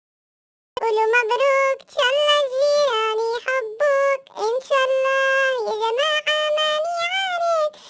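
A high-pitched voice singing a children's song in gliding melodic phrases, starting after about a second of silence.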